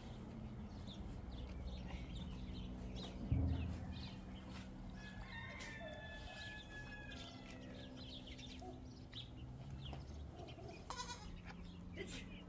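Farmyard animal sounds: livestock calls and a rooster crowing, the crow drawn out for about two seconds near the middle, over a steady low hum. A single low thump comes about three seconds in.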